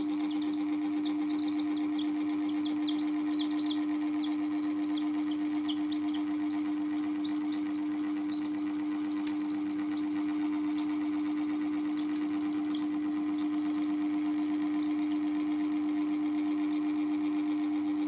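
Baby chicks peeping continuously: short, high, downward-sliding peeps, several a second, with only brief pauses. A loud steady low hum runs underneath.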